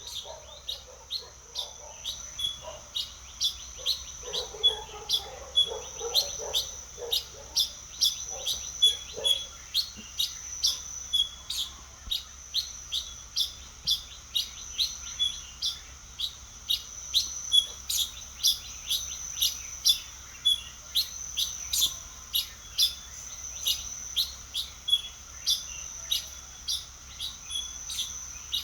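Birds singing: a steady run of short, high chirps, two or three a second, over a constant high-pitched tone. Lower-pitched calls join in during the first third.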